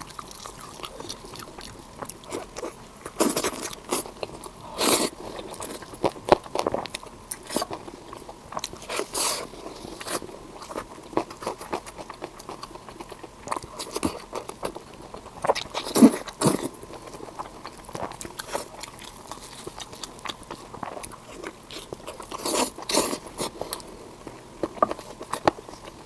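A person biting and chewing pork belly close to the microphone: irregular wet clicks and chewing noises, with louder single bites every few seconds.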